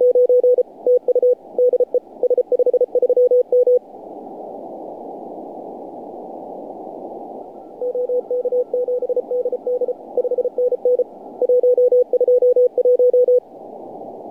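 Morse code (CW) tones of about 500 Hz received on a Kenwood TS-570DG shortwave transceiver, keyed in dots and dashes over band hiss heard through a narrow receive filter. Two runs of keying, the first for about the first four seconds and the second from about eight to thirteen seconds in, with only hiss between them.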